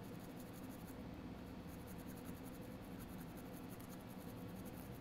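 Semi-soft cleaning brush scrubbing corrosion off a Mercedes-Benz key fob's circuit board: faint, rapid, scratchy back-and-forth strokes over a low steady hum.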